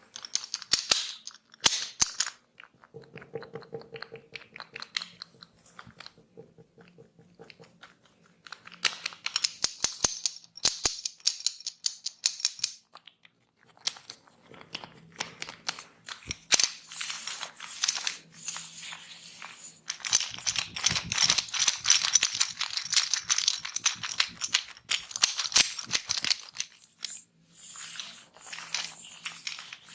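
Hair cracking in a head massage: fingers pull and snap through long hair, making rapid crackling snaps. The snaps come in runs with short pauses, the longest run taking up much of the second half.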